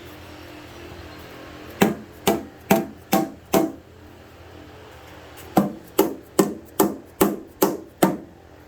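A mallet striking a stuck part to bust its seal: five sharp blows at about two to three a second, a pause, then seven more, each with a short ring. The part stays stuck.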